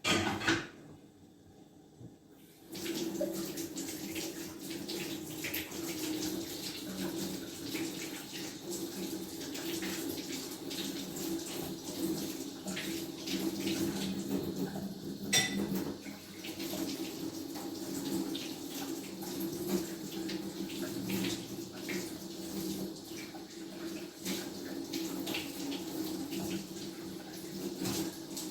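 A kitchen tap turned on about three seconds in and left running steadily into the sink, after a single knock at the start; a sharp click about halfway through.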